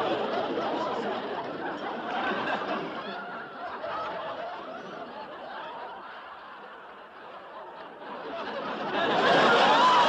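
People laughing and giggling, dying down midway and rising again near the end.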